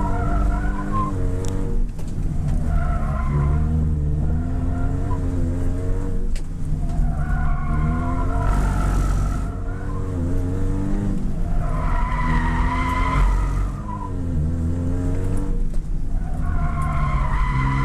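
Toyota Yaris B-Spec race car's four-cylinder engine revving up and down, heard from inside the cabin, while its tires squeal in repeated waves as the car drifts around a skid pad. The slides are oversteer, caused by softer tires on the front and harder tires on the rear.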